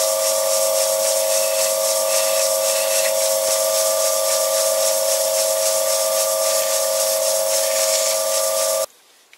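Vintage Karger lathe running with a steady whine, under a steady hiss of the spinning steel backing-plate register being filed and rubbed by hand. It all cuts off abruptly near the end.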